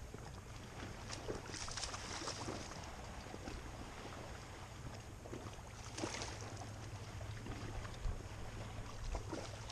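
Steady low wind rumble on the microphone over open water, with a few faint rustles and small clicks.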